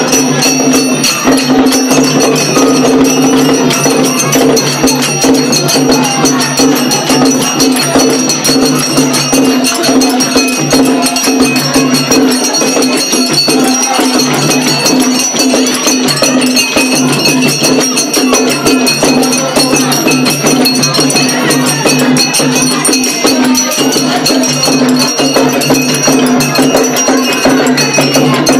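Live traditional Ma'di dance music: hand drums played in a fast, dense, unbroken rhythm, with hand clapping and singing from the surrounding circle.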